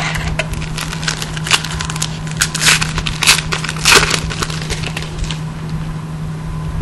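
Foil wrapper of a 2011 Panini Prestige football card pack torn open and crinkled by hand: a run of sharp crackling rustles, loudest around the middle.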